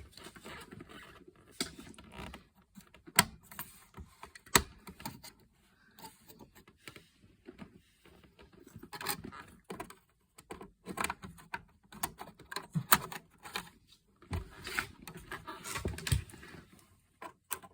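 Irregular clicks, taps and rustling of hands handling RAM modules and pressing them into the memory slots of a Power Mac G5 Quad.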